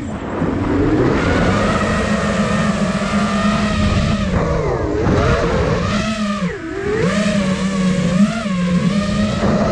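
Five-inch FPV quadcopter's motors and propellers whining, the pitch gliding up and down with the throttle and dropping sharply twice, about five and six and a half seconds in.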